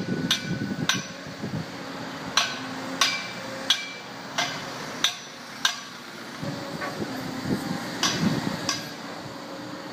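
Sharp, ringing metallic clanks, about a dozen at irregular intervals, as the demolition attachment on a Liebherr 920 wheeled excavator strikes and breaks the concrete and steel of a building front. The excavator's diesel engine hums steadily underneath.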